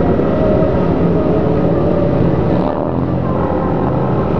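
Motorcycle engines running steadily in a large pack of sport bikes, heard from one of the bikes, with rushing wind on top. About two and a half seconds in the sound eases off slightly, then picks back up.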